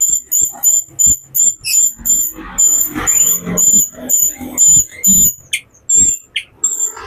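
A songbird repeating short, sharp, very high-pitched call notes, about three a second, with a rougher, scratchy chatter mixed in through the middle.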